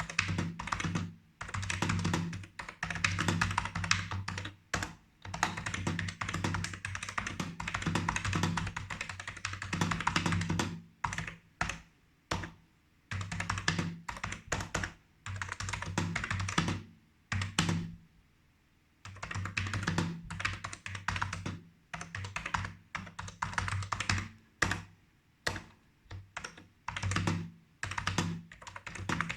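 A 1993 BTC 5149 computer keyboard being typed on in fast runs of key clicks, each run with a low thud under it. The runs break off for short pauses, the longest about twelve and eighteen seconds in.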